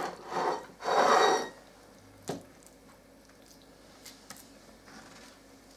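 Raw, pounded chicken breast fillets being handled and laid flat on a stone countertop: three wet squishing, slapping sounds in the first second and a half. A single light knock follows a little after two seconds, then a few faint taps.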